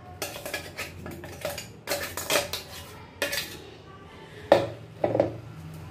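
Stainless steel mixer jar knocking and scraping against a steel mesh strainer as thick chutney paste is tapped out of it: a run of irregular metal clanks with short ringing, the loudest about four and a half seconds in.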